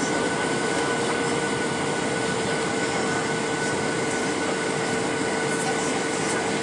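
Steady in-flight cabin noise of a Boeing 737-900ER heard from a window seat over the wing: the rush of airflow and the drone of its CFM56 turbofan engines, with a steady hum and a fainter, higher whine held on top.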